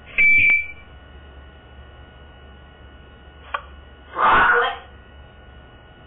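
African grey parrot vocalising: a short, high whistled beep just after the start, a single click about three and a half seconds in, then a raspy, hissing call of about half a second a little after four seconds.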